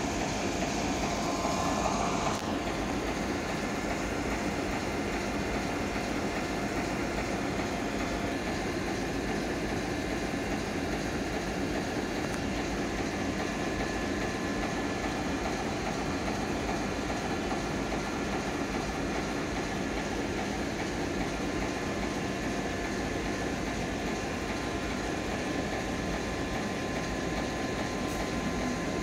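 Suburban electric commuter train approaching a station platform at low speed: a steady, even rumble with a faint hum.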